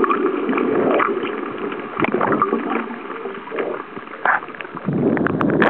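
Muffled water sloshing and gurgling around a camera held under water, with scattered sharp clicks and a louder surge near the end.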